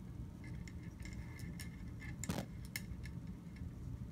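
Handling sounds while a BoreSnake is worked through a .22 rifle: faint scattered ticks and clicks, with one brief rubbing swish of the braided cord about two seconds in.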